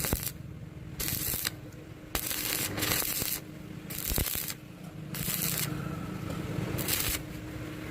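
Stick-welding arc crackling and hissing in repeated bursts, each about half a second to a second long, with short quieter gaps between them.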